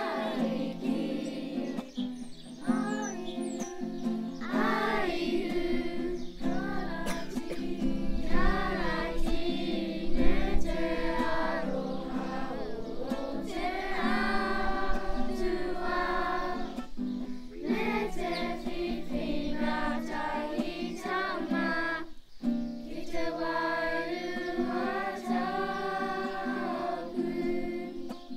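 A school kapa haka group of children singing a Māori song together in unison, accompanied by a strummed acoustic guitar.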